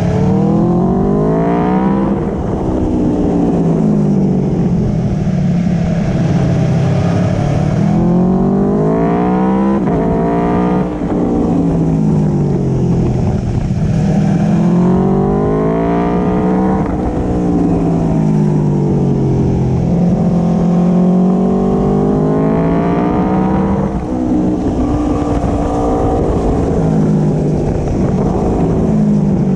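Aprilia Tuono V4 Factory's V4 engine through an Akrapovic slip-on exhaust, heard on board while riding: the revs climb and fall again and again as the rider accelerates and eases off. There is a raspy edge when it revs higher, over steady wind and road rumble.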